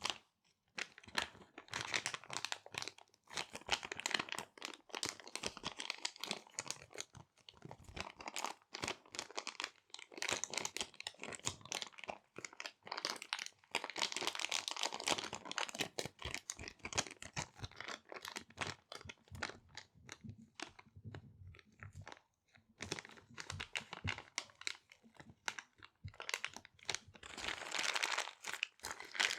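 Small resealable plastic bags being crinkled and handled: a dense run of crackles that swells and eases in waves, with brief pauses.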